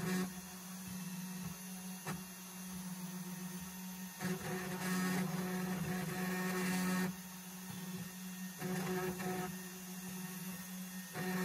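Comgrow Robo desktop CNC router engraving wood: the spindle runs with a steady hum while the stepper motors move the engraving bit, on a light first pass of 0.25 mm that just scratches the surface. The sound grows louder for a few seconds about four seconds in, and again briefly near the end.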